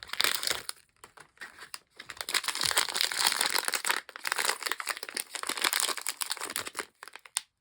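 Plastic blind-bag packaging being crinkled and handled in a dense, irregular crackle, pausing briefly about a second in and stopping just before the end.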